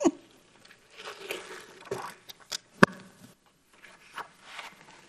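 Large hardcover picture book being handled and its pages turned: paper rustling and scraping, with a few sharp taps, the loudest a little under three seconds in.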